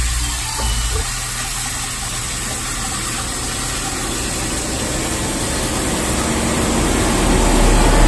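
Steady, loud rushing hiss with no distinct tones, slowly growing a little louder.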